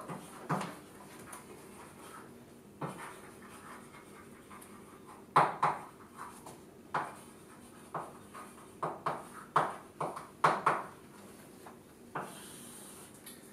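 Chalk writing on a chalkboard: a run of sharp taps and short scratching strokes as the letters go down, with a longer scrape near the end.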